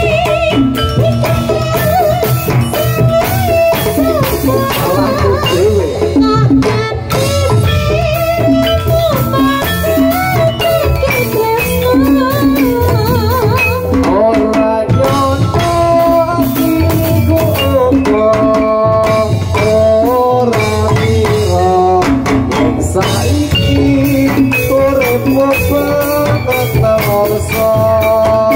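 Live Javanese gamelan music accompanying a jathilan trance dance: drums and bronze metallophones playing continuously over a wavering melody line.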